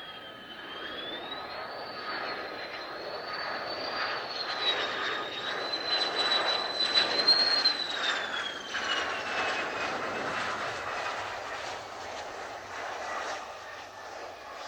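Mitsubishi F-2 fighter's single F110 turbofan engine whining as the jet passes: a high whine over a rushing noise, growing louder to a peak about seven seconds in, then the whine slides down in pitch as it moves away.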